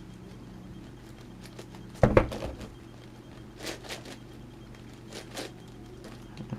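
Plastic clicks and clacks of a large 11x11x11 Rubik's cube being turned by hand, with one louder clatter about two seconds in and a few faint clicks after it, over a steady low hum.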